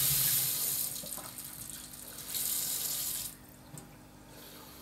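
Kitchen tap running into a stainless-steel sink while a mug is filled with cold water. The flow is loud at first, eases after about a second, surges again, and falls away sharply a little past three seconds in.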